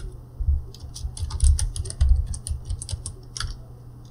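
Typing on a computer keyboard: a quick run of about a dozen keystrokes, sharp clicks with dull thuds as the keys bottom out, from about half a second in until shortly before the end.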